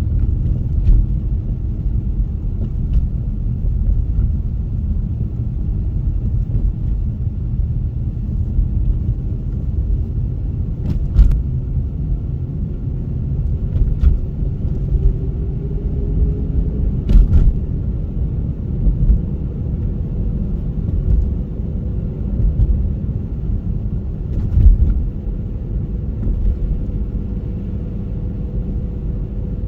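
Car driving in a snowstorm: a steady low rumble of road and engine noise, with a few sharp knocks along the way.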